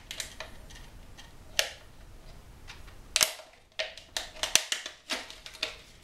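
Thin PET soda-bottle plastic being handled and pushed into slits cut in a 2-liter bottle: irregular sharp plastic clicks and crackles, the loudest about a second and a half in and about three seconds in.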